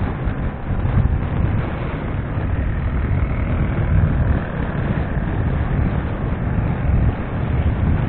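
Wind buffeting the microphone of a moving vehicle's dash camera, over a low, uneven rumble of engine and road noise while travelling along a highway.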